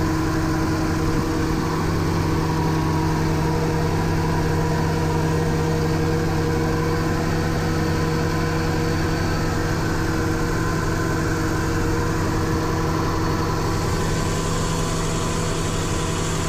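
Mercruiser 5.7 L small-block V8 marine engine idling steadily, running with its newly replaced engine circulating water pump driven by the serpentine belt.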